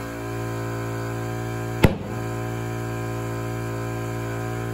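Small air compressor running steadily as it inflates a tire, with one sharp, loud pop about two seconds in, typical of the tire bead snapping onto the wheel rim.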